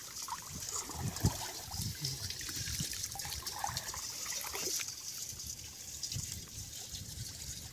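Shallow muddy canal water sloshing and trickling as hands grope through it along the bank, with small irregular splashes and gurgles and one sharper splash about a second in.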